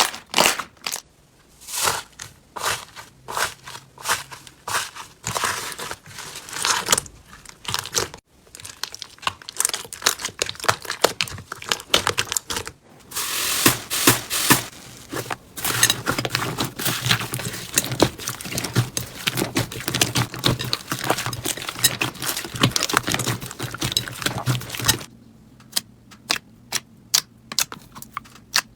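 Slime being squeezed and poked by hand, making dense runs of small crackling clicks and pops. The sound changes character a few times, and near the end it thins to sparse single clicks.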